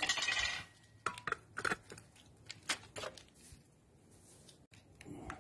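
Metal tools and parts clinking against the stripped Lister SR3 diesel engine, engine not running. A loud clank with a brief ringing tone comes right at the start, followed by a scatter of lighter clicks and taps over the next three seconds.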